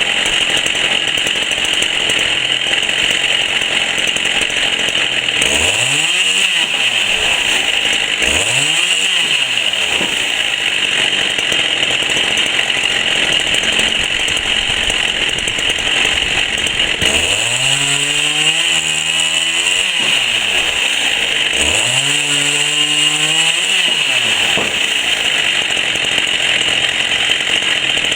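Chainsaw running steadily and loud, its engine pitch rising and falling back four times.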